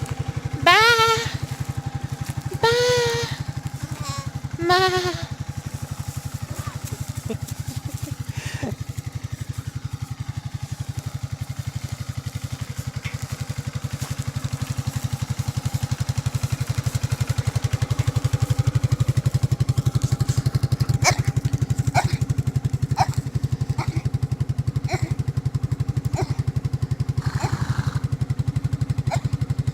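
A four-wheeler's (ATV's) engine running steadily, growing louder about halfway through. Early on a lamb bleats three times, and near the end there are several sharp knocks and rattles.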